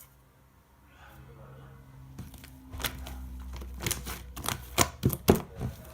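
Shaving-foam slime being squeezed and pressed, giving sharp clicks and pops. They start about two-thirds of the way in and come faster and louder toward the end.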